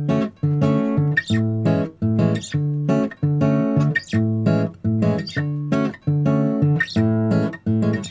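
Bossa nova background music: acoustic guitar strumming chords in a steady, even rhythm.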